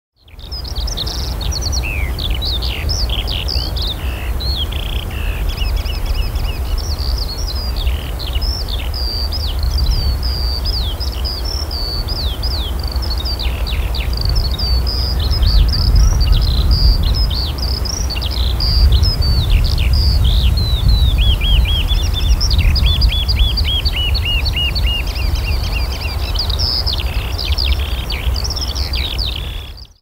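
Evening chorus of many songbirds: a dense mix of high chirps, whistles and trills, with a fast run of repeated notes about two-thirds of the way through, over a steady low rumble.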